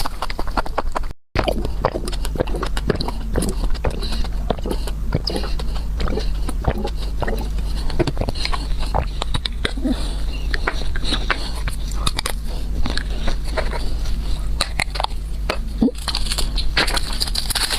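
Close-miked eating: a person biting and chewing food, with many quick irregular crunches and crackles over a steady low hum. The sound cuts out briefly about a second in.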